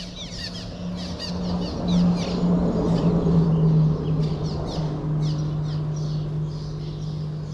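Small birds chirping over and over, short quick falling notes, over a steady low hum with a rushing noise that swells to its loudest midway and then eases off.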